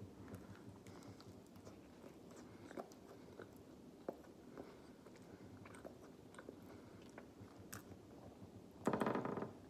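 A person chewing a bite of McDonald's cheeseburger with the mouth close to the microphone: faint, irregular wet clicks and smacks. Near the end comes a brief, louder pitched sound.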